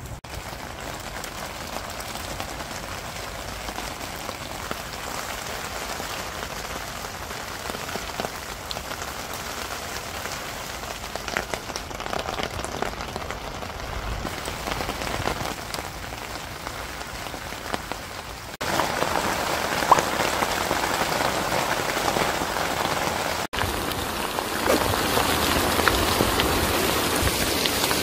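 Heavy rain falling steadily. It cuts abruptly and comes back louder about two-thirds of the way through, then cuts briefly once more.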